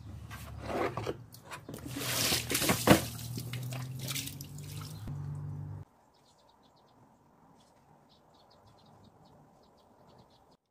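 Rustling and knocking handling noise over a steady low hum as coir doormats are picked up and moved, with one sharp knock near the middle. It cuts off abruptly about six seconds in, leaving only faint quick high ticking.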